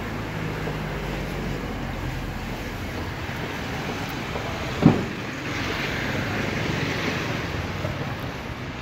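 Street traffic noise with a panel van's engine and tyres passing close by; a short sharp thump just before halfway through, then the passing noise swells for a couple of seconds.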